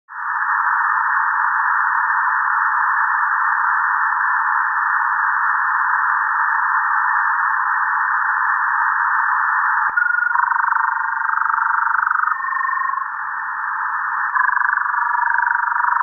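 Shortwave radio heard on 6660 kHz in lower sideband through an online software-defined receiver. It starts as steady static hiss. About ten seconds in, a whistling signal starts hopping between several pitches in two runs of about two seconds each, with the hiss beneath.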